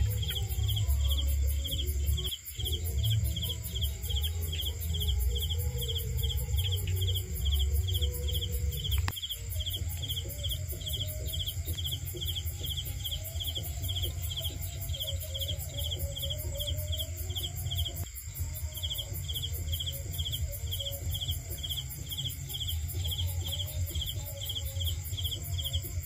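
Crickets chirping at night: a steady, even chirp of about two a second over a continuous high insect trill, with a low rumble underneath. The sound drops out briefly three times.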